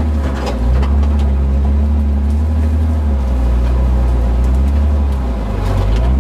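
Off-road 4x4's engine running steadily as it drives a rough forest track, a deep drone heard from inside the cab, with a few brief knocks mixed in.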